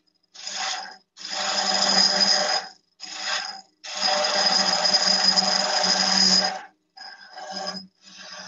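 Woodturning gouge cutting into a small wooden baseball-bat blank spinning on a lathe, giving a rasping shaving noise. It comes in about six separate passes, the longest lasting nearly three seconds, with short quiet gaps between them.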